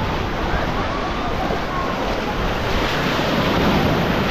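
Baltic Sea surf washing onto the beach in a steady wash, with wind buffeting the microphone.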